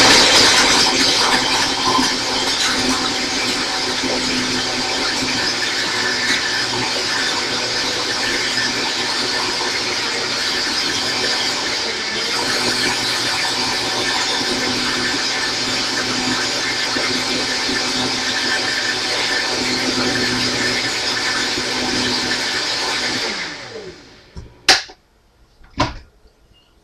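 Countertop blender running, blending frozen blackberries and blueberries with almond milk into a thick shake. It is loudest in the first second or two while the frozen fruit breaks up, then runs steadily and stops about 23 seconds in. Two sharp knocks follow near the end.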